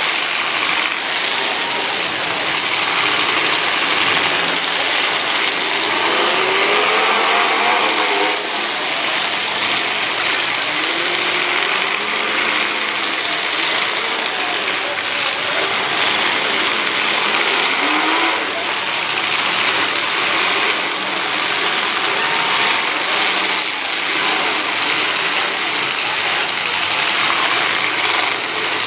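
Many demolition derby car engines revving together in a dense wall of engine noise, their pitch rising and falling, with a few sharp bangs of cars colliding.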